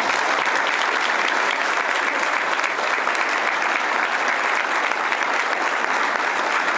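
Audience applauding, a steady, even clapping from a roomful of people.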